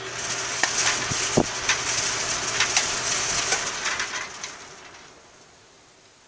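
Air rushing through an aluminium gravity-shutter louvre vent, its flaps blown open and clicking and rattling against the frame, over a low hum. The rush dies away after about four and a half seconds as the flaps fall shut.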